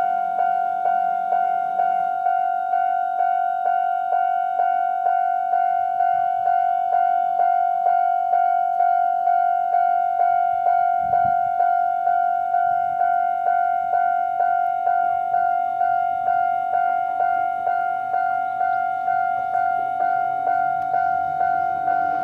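Japanese railway level crossing warning alarm sounding its normal electronic bell tone, a single ringing note struck steadily a little over twice a second.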